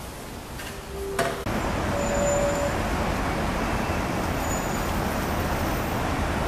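Quiet room tone with a sharp click, then from about a second and a half in the steady, even noise of busy road traffic, cars and buses, with a couple of brief tones over it.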